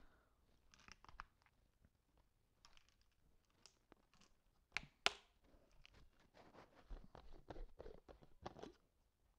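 Faint handling of a plastic water bottle: crinkling of the thin plastic and the cap being worked open, with two sharp clicks about five seconds in and a patch of soft rustling near the end.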